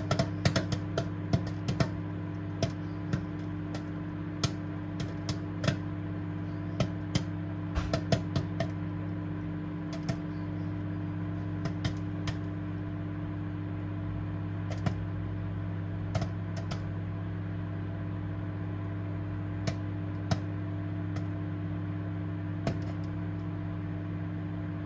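Microwave oven running with a steady hum while popcorn kernels pop inside a bag; the pops come thick and fast at first, then thin out after about nine seconds to a few scattered ones, the sign that the popcorn is nearly done.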